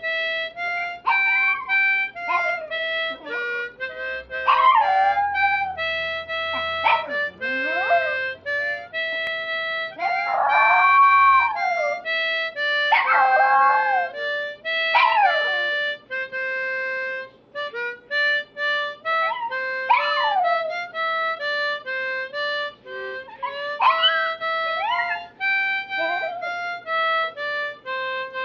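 Harmonica playing held notes while a small dog howls along, its wavering cries rising and falling over the notes again and again.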